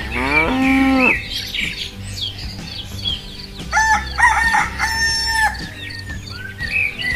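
A rooster crowing, with a rising call in the first second, and small birds chirping over a steady low musical beat.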